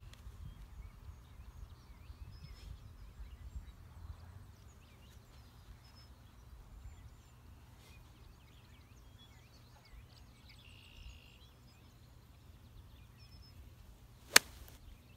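A single sharp click of a golf club striking a teed-up ball, near the end, over a low uneven outdoor rumble.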